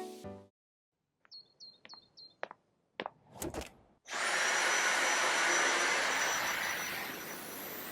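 Four short high chirps and a few clicks, then about four seconds in a vacuum cleaner's motor starts and runs with a steady hiss and a thin high whine.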